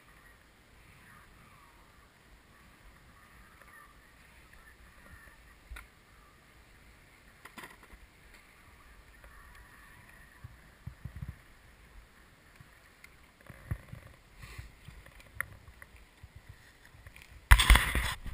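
Faint rustle of skis sliding over snow under gusts of wind buffeting a helmet camera's microphone, with a loud rush of wind on the microphone near the end.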